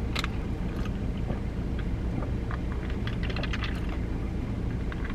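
A person chewing fried chicken at close range: scattered soft crunches and mouth clicks, busiest about three seconds in, over a steady low hum.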